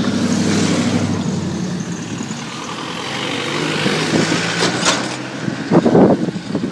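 Road vehicle engines running past, the engine hum swelling in the first second and again a few seconds later, with wind buffeting the microphone. A few sharp bumps near the end.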